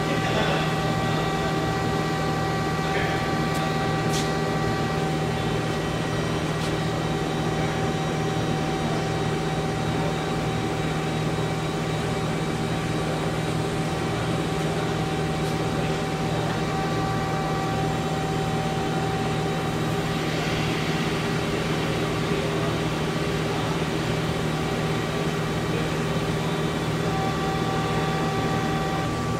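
Hyd-Mech S-23A horizontal band saw running through a cut in metal stock, a steady machine hum with a few faint ticks.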